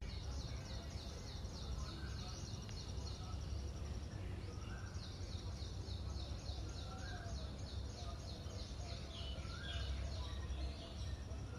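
Birds singing in the morning: rapid runs of high, quick chirps, about five a second, with a lower short call every couple of seconds, over a steady low rumble.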